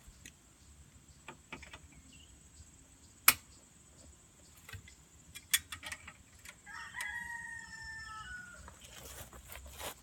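A rooster crowing once, a drawn-out call of about two seconds in the second half, its pitch sagging slightly toward the end. Earlier, scattered light metal clicks of hand tools, with one sharp clink about a third of the way in, the loudest sound.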